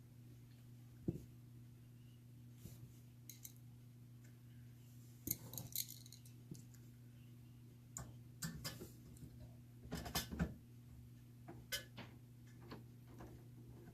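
Irregular clicks and metallic clinks of hand tools and small parts being handled during the disassembly of a desktop computer, over a steady low hum. There is a sharp click about a second in and clusters of clatter around five and ten seconds in.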